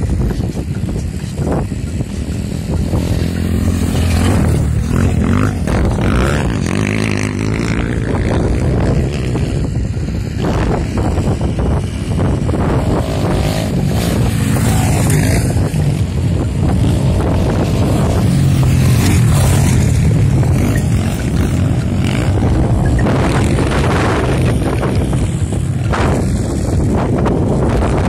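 Motocross dirt bike engines running hard on the track, revving up and down as they accelerate and shift, loudest a little past the middle as a bike passes closest.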